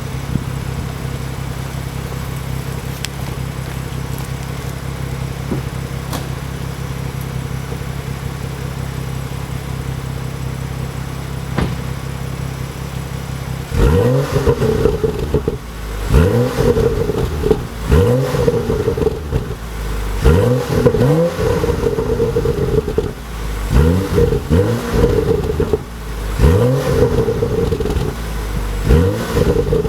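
BMW M235i's 3.0-litre turbocharged straight-six running through its stock exhaust, idling steadily, then blipped hard about seven times from about halfway through, the revs rising and falling with each blip.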